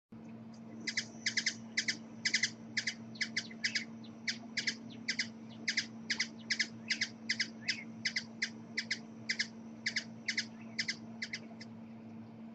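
A hummingbird giving a long series of short, sharp chip notes, about three a second, which stop about a second before the end. A steady low hum runs underneath.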